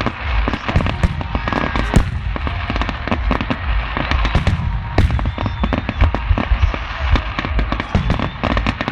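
Aerial fireworks display going off in a dense barrage: many sharp bangs in quick succession over a continuous low rumble.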